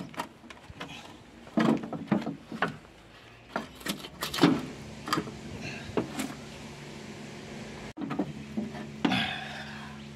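Hard plastic door-step trim being worked loose and lifted off a van's sill: a series of irregular clunks, knocks and scrapes of plastic against metal.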